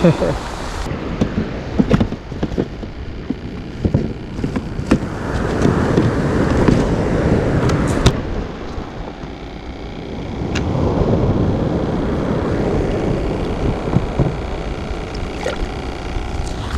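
Surf washing up on a pebbly beach, swelling twice as waves come in, with wind on the microphone. Scattered sharp clicks and knocks sound over it.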